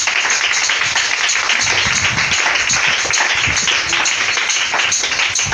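Many people clapping their hands together, dense and continuous, loud throughout.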